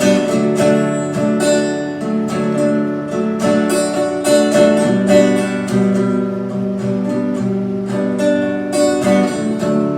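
Acoustic guitar playing an instrumental passage of picked and strummed chords, with no singing over it.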